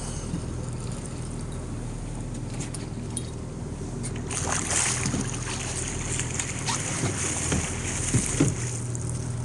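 Boat engine running steadily with a low hum. About four seconds in a rushing hiss joins it, and there are a few knocks near the end.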